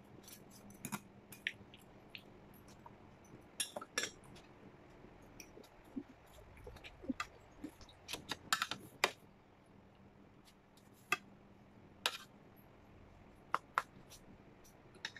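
A metal spoon clinking and scraping against stainless steel plates and bowls, in scattered sharp clicks with a quick cluster of several a little over halfway through.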